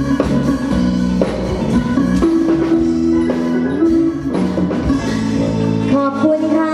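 Isan pong lang folk ensemble playing an instrumental passage: the wooden pong lang log xylophone and other mallet notes over a steady drum beat.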